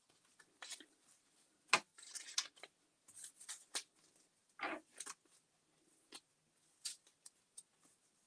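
Paper scraps being handled and pressed by hand onto a collage journal page: scattered short rustles and light taps, the sharpest a single crisp tap about two seconds in.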